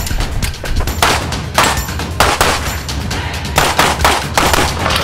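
Semi-automatic handgun firing a rapid string of shots, many in quick pairs, each one sharp with a short echo.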